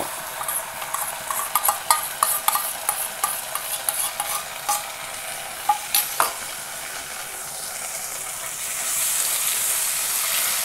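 Ground pirandai (Cissus quadrangularis) paste sizzling in hot ghee in a nonstick kadai, with a metal spoon clicking and scraping as the paste is scraped off a steel bowl into the pan. The sizzle grows louder over the last few seconds as the paste is stirred.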